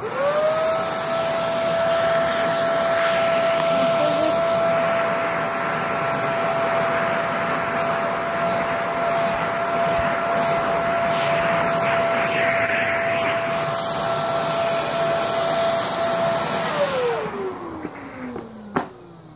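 Vacuum cleaner switched on, its motor rising quickly to a steady whine over rushing suction noise. After about sixteen seconds it is switched off and winds down in a falling whine, followed by a sharp click.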